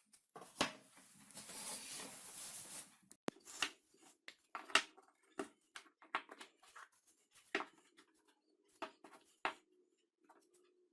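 Light clicks and knocks of small wooden parts being handled, with a stretch of scraping or rubbing about a second in.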